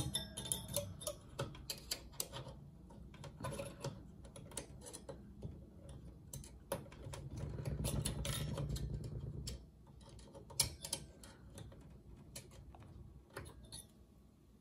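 Steel screwdriver tip clicking and scraping against a metal heatsink spring clip as the clip is pressed and bent to snap it into place, with many irregular sharp clicks. A louder low rumble runs from about seven to nine and a half seconds in.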